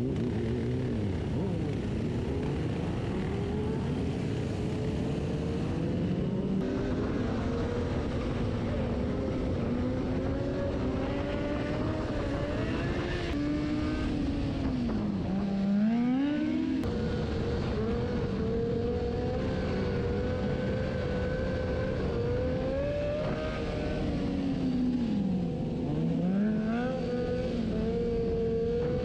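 Motorcycle engines running and revving, their pitch climbing and falling continually; twice, about halfway through and again near the end, the pitch drops sharply and climbs straight back up.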